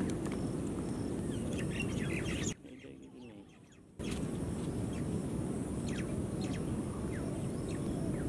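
Small birds chirping in short, scattered calls over a steady low outdoor rumble, with a brief quieter break about a third of the way in.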